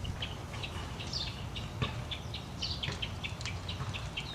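Birds chirping: a run of short, quick high chirps, some sliding down in pitch, over a low steady background rumble.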